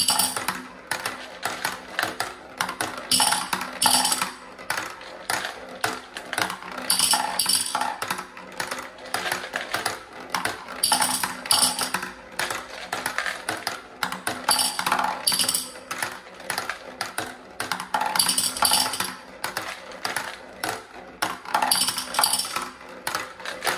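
Glass marbles rolling down the plastic zigzag tracks of a marble ramp toy, tick-tacking at each switchback and clinking against the marbles in a glass jar at the bottom. A new marble comes down about every four seconds.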